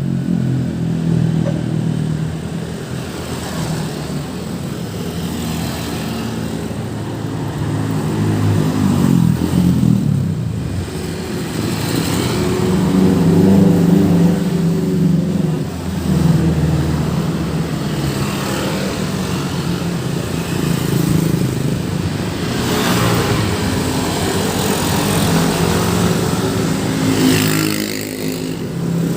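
Busy road traffic passing close by: the engines of several motor vehicles running, swelling and fading as they go past.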